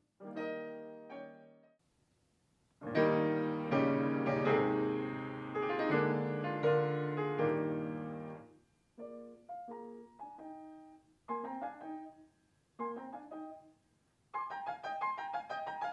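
Grand piano playing: a chord fading out on a black Yamaha concert grand. Then, on a Yamaha art-case grand with a carved wooden case, loud full chords, a few spaced-out chords, and a quick run of notes near the end.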